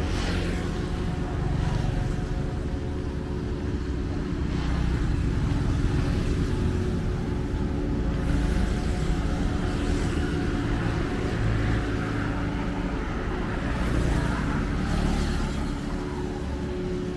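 Road traffic passing on a highway: a steady low rumble of engines, with vehicles swishing by every few seconds.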